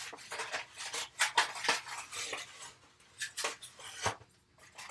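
Rummaging in a refrigerator: irregular clinks and knocks of jars and bottles in the door, and the rattle of a plastic egg carton being taken out.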